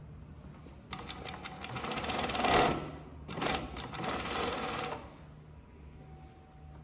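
Kansai Special 1404PMD four-needle chainstitch sewing machine stitching a waistband: a rapid run of needle strokes starts about a second in, eases briefly in the middle and stops about two seconds before the end. A low steady motor hum runs underneath.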